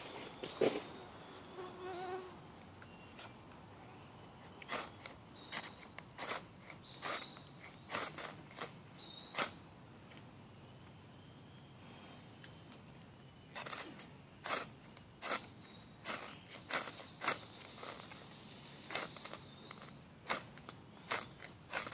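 Fire striker scraping out sparks onto tinder in short, sharp strikes. A knock comes just after the start, then a run of strikes about a second apart. After a pause of a few seconds comes a faster run of about two strikes a second.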